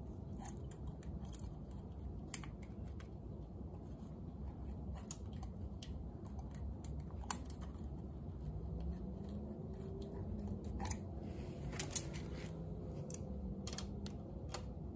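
Small metal hand tools clicking and tapping against a 125cc motorcycle engine's cylinder head. The light ticks come at uneven intervals, a few louder ones scattered through, over a low steady hum.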